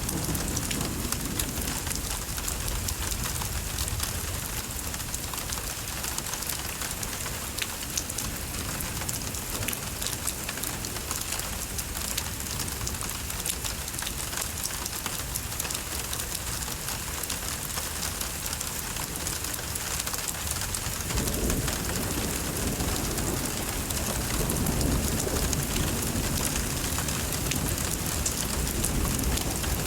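Texas thunderstorm: rain falling steadily. A low rumble of thunder fades away in the first second, and a new roll of thunder comes in suddenly about two-thirds of the way through and keeps rumbling to the end.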